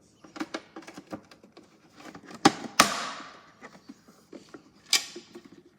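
Plastic parts of a toy washing machine being handled: a run of light clicks and knocks, with two sharp knocks about two and a half seconds in and another near five seconds.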